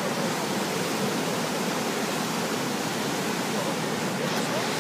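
Floodwater rushing steadily, a constant even wash of noise.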